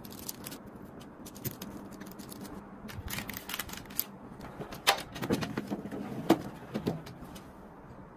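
A knife cutting through crisp biscuit-topped bars and the bars being set down on parchment paper: a run of irregular crunches, taps and paper rustles, with two sharper clicks in the second half.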